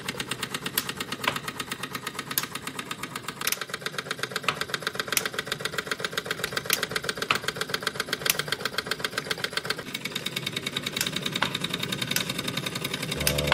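Small handmade steam engine running, driving belt-and-pulley line shafting and miniature workshop machines: a fast, even ticking clatter with the odd louder click.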